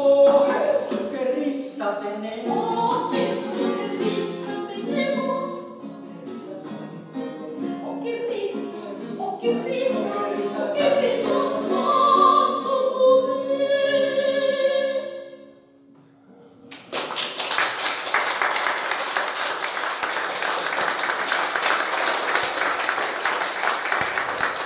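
Soprano singing over strummed baroque guitar, finishing the song on a held note about fifteen seconds in. After a brief pause, audience applause starts about seventeen seconds in.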